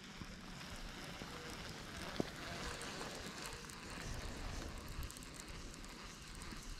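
Faint, even outdoor background hiss with a single sharp click about two seconds in.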